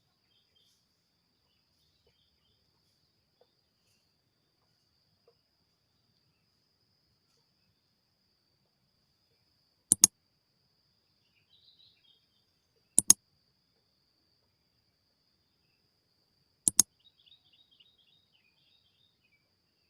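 A faint, steady high insect drone with scattered faint bird chirps. Three sharp double clicks break in, about three to four seconds apart, each a pair of quick knocks.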